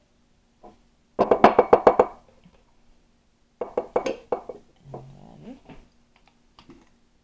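A utensil rapping quickly against a glass jar while scooping out queso dip: two rapid runs of about eight clinking knocks each, the first about a second in and the second near the middle, followed by softer scraping. A faint steady hum sits underneath.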